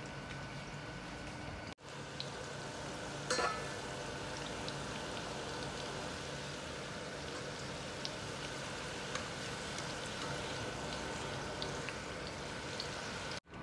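Potato fries deep-frying in a pot of hot oil during their first fry: a steady sizzle with scattered crackles. A brief louder clatter comes about three seconds in.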